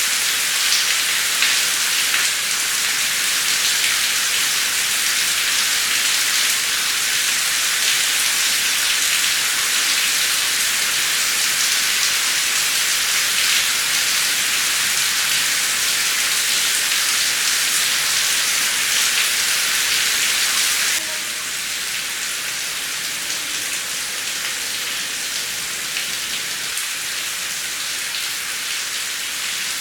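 Steady heavy rain, a dense even hiss of drops falling on surfaces. About two-thirds of the way through it drops abruptly to a slightly quieter, duller rain, as at a splice in the recording.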